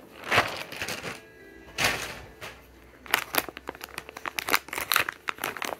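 Plastic packaging being handled: a white plastic mailer bag rustles a couple of times, then a foil jerky pouch crinkles in quick sharp crackles from about three seconds in.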